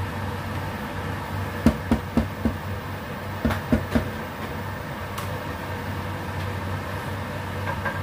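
A wooden spoon knocks against the rim of a metal saucepan in two quick runs, four knocks and then three, shaking soup off the spoon. Under it runs the steady hum of the induction cooktop.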